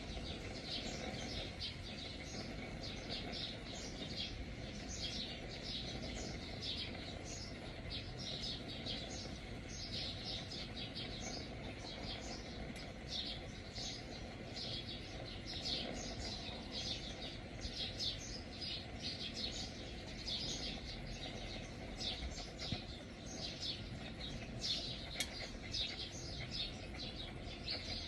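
A flock of small birds chirping, with short high chirps several times a second, over a steady low background noise.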